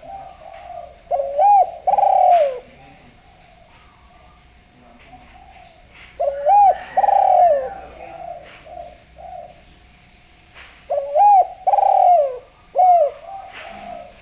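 Spotted dove (derkuku) cooing: three loud phrases about every five seconds, each a few short coos ending in a longer note that falls in pitch, with fainter cooing in between.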